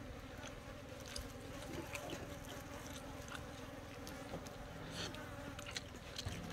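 Flies buzzing steadily around the food, with a few faint ticks scattered through.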